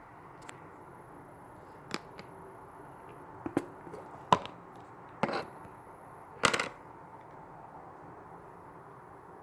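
Clear slime and frog-egg beads being handled: a few sharp clicks and taps, then two short noisy handling sounds about five and six and a half seconds in.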